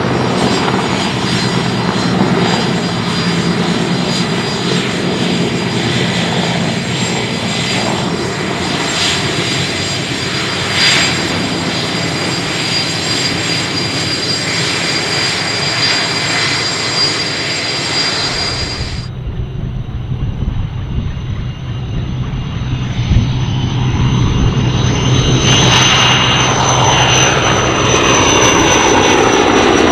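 Sikorsky S-64E Skycrane heavy-lift helicopter in flight: steady rotor noise under a high turbine whine from its twin engines. About two-thirds of the way through the sound changes abruptly, and near the end the whine grows louder and brighter as the helicopter comes close.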